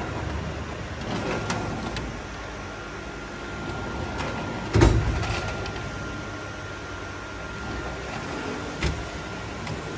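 Steel tool-cabinet drawers being slid open and shut, with a loud clunk about five seconds in and a smaller one near the end, over a steady hum.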